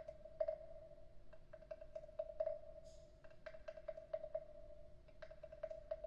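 Wooden frog percussion instrument being tapped and rubbed, giving irregular sharp wooden clicks, some in quick clusters, over a steady hollow ring that swells with each stroke.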